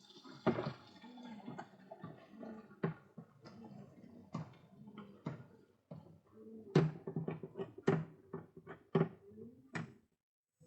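Pigeons cooing, low rolling coos repeating over one another, mixed with sharp clicks and taps that crowd together in the second half. The sound drops out briefly near the end.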